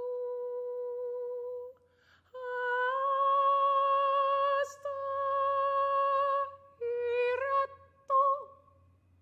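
Unaccompanied solo female voice: a long steady hummed note, then, after a breath, a slightly higher sung note held with vibrato and broken once by a short hissing consonant, followed by two brief notes near the end.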